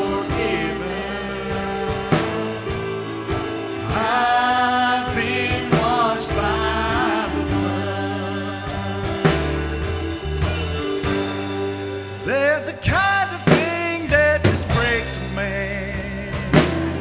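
Live worship band playing: singers hold long, wavering notes over steady chords from the band, with drum strokes.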